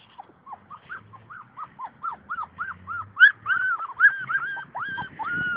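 Puppy whining in a quick run of short, high whines, about four a second, each rising and falling in pitch; they grow louder and more drawn out from about halfway through.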